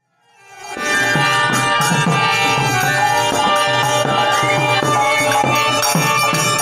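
Bengali devotional kirtan music fading in over the first second: a khol drum beating a steady rhythm under a violin melody.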